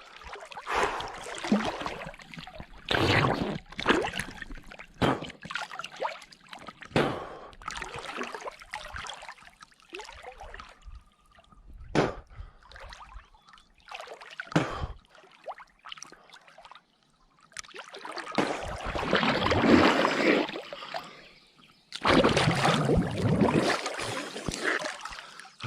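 Water splashing and sloshing around a person swimming in a lake. The splashes come irregularly, with two longer, louder spells of churning water in the last third.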